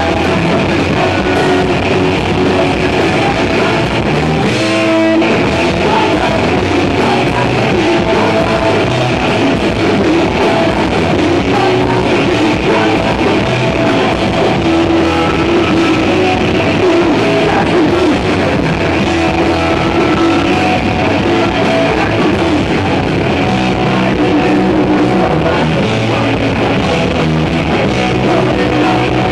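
Live punk rock band playing loud and continuous, with electric guitars, drums and a sung vocal.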